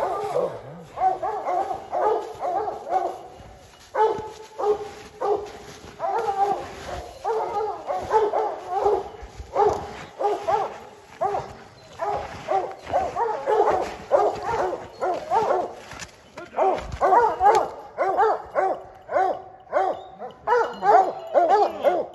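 Hunting hounds barking and baying at a treed mountain lion, a steady run of calls a couple to the second: the tree bark that tells the hunters the cat is treed.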